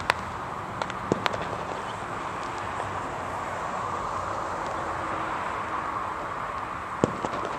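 Fireworks going off as a few sharp pops, a cluster in the first second and a half and two more about seven seconds in, over a steady hum of highway traffic.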